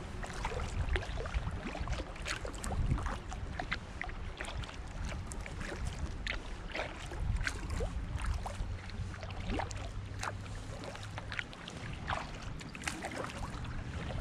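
Kayak paddling: many small splashes and drips of water off the paddle blades, over a low rumble.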